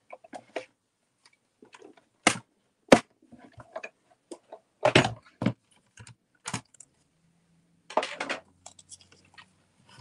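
Clear plastic cutting plates of a die-cutting machine clacking and knocking as they are handled and taken apart: a string of separate sharp knocks, loudest about three seconds in.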